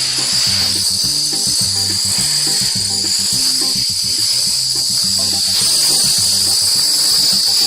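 Music: short low notes stepping up and down in a bouncing rhythm, with a steady high hiss over the top.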